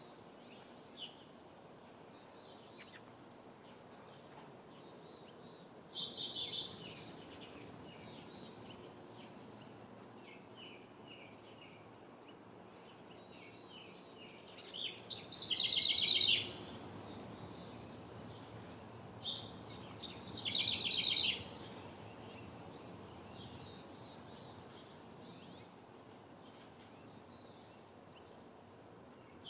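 Wren singing: three loud bursts of rapid trilled notes, each about a second to a second and a half long, with faint scattered chirps in between over a steady background hiss.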